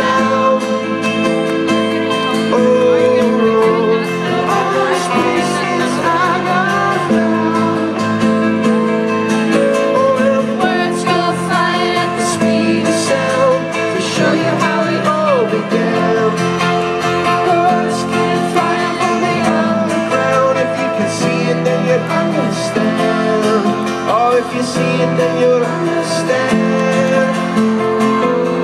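Live band playing a song with acoustic guitar strumming and keyboard chords, and a voice singing over them, heard from among the audience.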